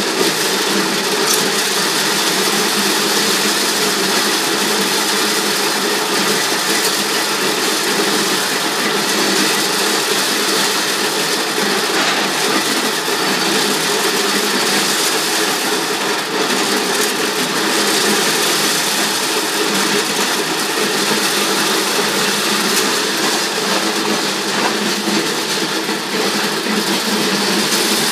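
Motor-driven maize sheller running steadily and loudly while whole corn cobs are fed into it by hand, stripping the kernels from the cobs.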